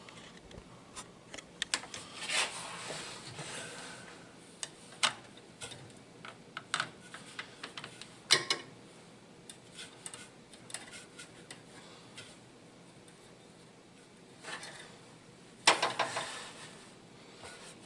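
Irregular metal clinks, taps and short scrapes of hand tools and a steel brake line being handled, with a brief louder scrape about two seconds in and another near the end.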